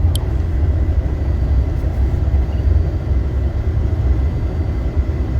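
Steady low rumble of a car cruising at about 53 mph, engine and tyre road noise heard from inside the cabin, with one brief high click right at the start.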